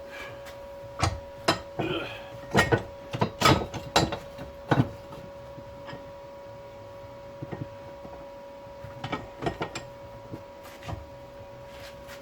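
Arc welder humming steadily at one pitch, with a cluster of sharp irregular metallic knocks and clicks in the first five seconds and a few lighter ones later on.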